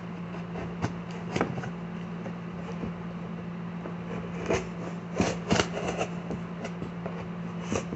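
A cardboard shipping box being handled: scattered rustles, scrapes and light knocks against the cardboard, busiest a little past the midpoint. A steady low hum runs underneath.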